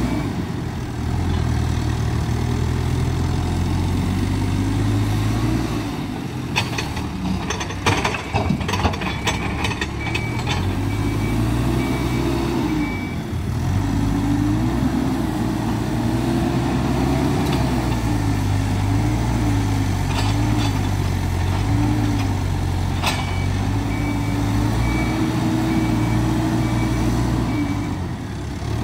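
Hidromek 102B Alpha A5 backhoe loader's diesel engine working, its note rising and falling with engine speed as the machine works. A burst of knocks and clatter comes about a quarter of the way through, with one sharp knock later, and a reversing alarm beeps steadily in stretches at the start, in the middle and near the end.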